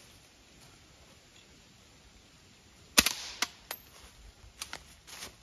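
A single suppressed shot from a 9mm carbine with a custom integral silencer on a Mean Arms bearing-delay upper, firing 147-grain subsonic ammunition: one sharp crack about three seconds in with a brief ring after it, which meters at about 125 dB. A few lighter clicks follow over the next two seconds.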